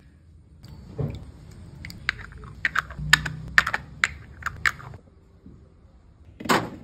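Hard plastic clicking and tapping as stick-lids are pressed into a plastic popsicle mould: about a dozen sharp clicks over a few seconds, then a louder, longer sound near the end.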